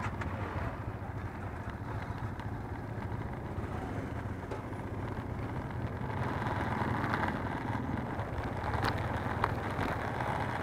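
Motorcycle engine running steadily under a constant rush of wind and road noise.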